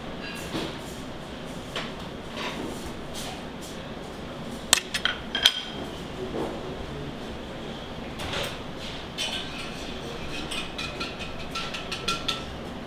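Kitchen clatter: metal utensils and dishes clinking and knocking on stainless steel counters, with a few sharp clicks about five seconds in and a run of clinks near the end, over a steady background hum.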